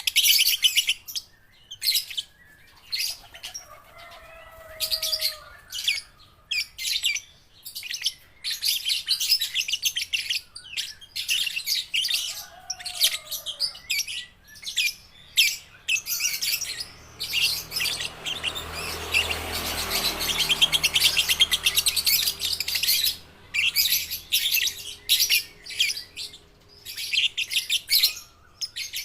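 Young lovebirds chattering in rapid, high-pitched buzzy bursts that start and stop every second or two, with a few faint lower gliding calls between them.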